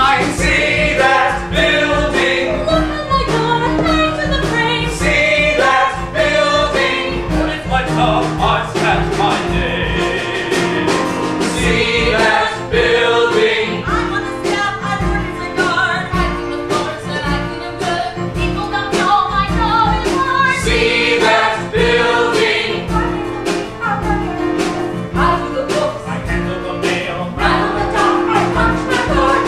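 A stage musical's cast singing a song with instrumental accompaniment and a steady beat.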